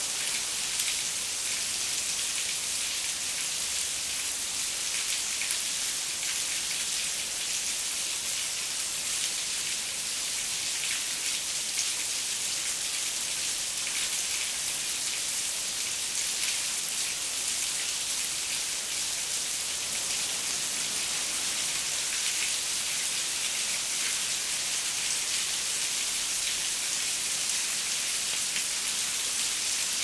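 Steady rain falling: a dense, even hiss scattered with many small drop ticks, unchanging throughout.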